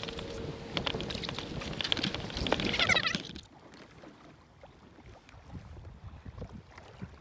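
Ocean water sloshing against a fishing kayak's hull, with knocks and clatter on board. A little past three seconds in it drops to quieter lapping of small waves, with light wind on the microphone.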